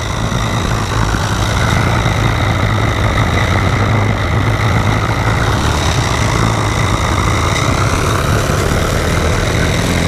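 Home-built single-cylinder oscillating marine steam engine, all on ball bearings and made from an MSS locomotive cylinder, revving fairly hard and running steadily as it drives a 50 mm propeller in a tub of water.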